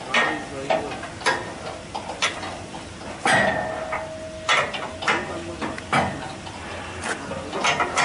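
Wrench tightening the bolt of a steel pipe clamp on a concrete pump delivery line: irregular metal clicks and clanks, with a louder clank about three seconds in.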